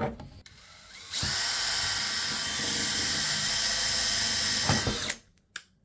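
Cordless drill running steadily for about four seconds as its bit drills a pilot hole through the metal front panel of an antenna tuner, then stopping abruptly; a single short click follows near the end.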